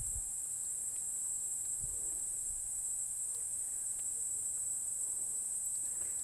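Rainforest insect chorus: a steady, high-pitched drone that holds without a break.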